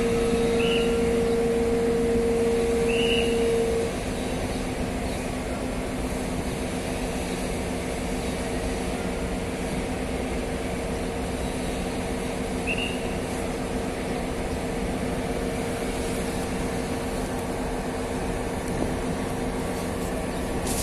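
Large crawler crane's diesel engine running steadily while it lowers a heavy load, a humming drone; one humming tone drops away about four seconds in, leaving a slightly quieter, even drone.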